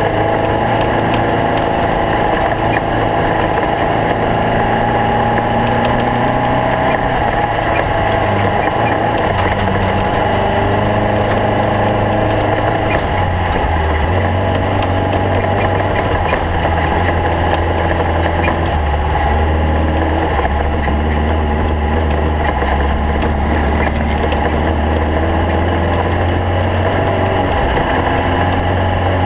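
Stock Bug race car's air-cooled VW flat-four engine running steadily, its note stepping lower about 13 seconds in and again near 19 seconds, then rising near the end.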